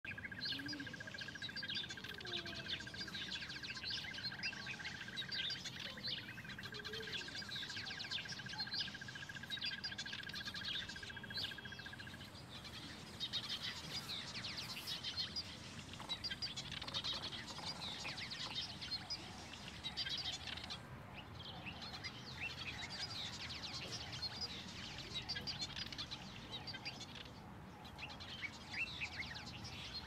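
Southern masked weavers chattering and chirping, many short high calls overlapping throughout. For about the first twelve seconds a steady, fast trill holds one pitch beneath them.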